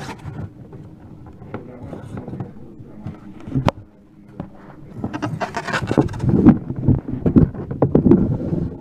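Blue data cable paying out of its cardboard box, rubbing and scraping against the box and its own coil in an irregular run of scrapes and ticks. It grows louder a little past halfway.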